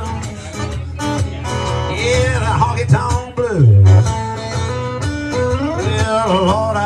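Live country music: a man singing with his own strummed guitar, the voice sliding in pitch, with a loud low note about three and a half seconds in.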